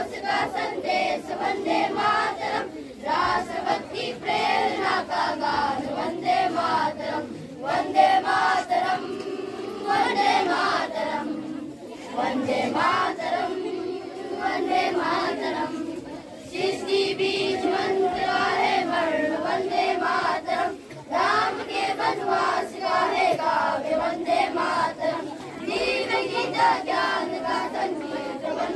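A choir of schoolchildren, girls and boys, singing a song together in unison, phrase after phrase with short breaths between.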